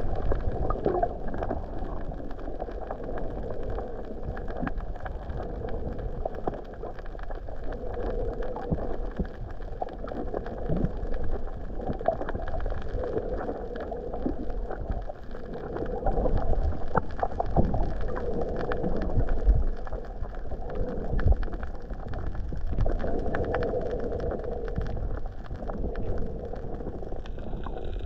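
Underwater water noise picked up by a submerged camera: a muffled, steady swirl and rumble with scattered crackles and clicks, swelling and easing every few seconds.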